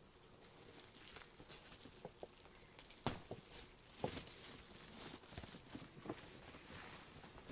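Bubble wrap crinkling and rustling as it is unwrapped by hand, with irregular sharp crackles, the loudest about three and four seconds in.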